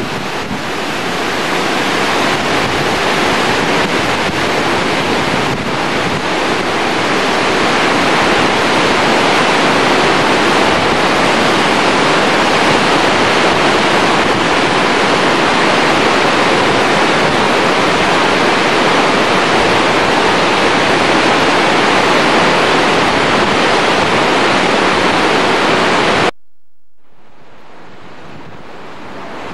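Glacial mountain stream rushing over rocks, a loud, steady rush of water. About three seconds before the end it cuts off abruptly to a much quieter rush.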